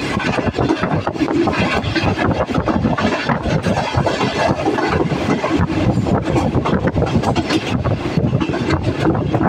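Moving passenger train heard from an open coach door: a loud, steady rumble of wheels on the rails with a constant run of quick clicks and rattles.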